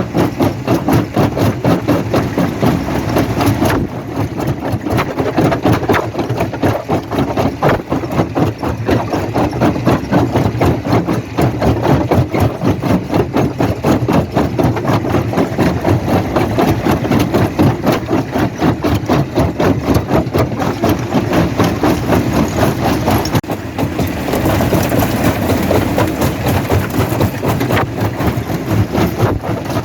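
Heavy stone-crushing machinery, a quarry jaw crusher and its engines, running with a fast, even pulsing. The sound shifts abruptly twice, about four seconds in and near the end.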